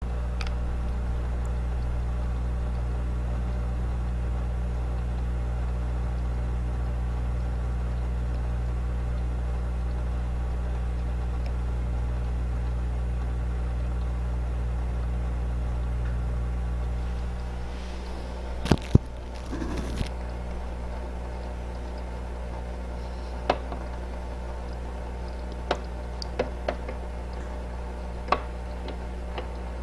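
Steady electric hum of a submersible aquarium pump running in the tank. A little past halfway the hum drops slightly, and a few scattered sharp clicks follow.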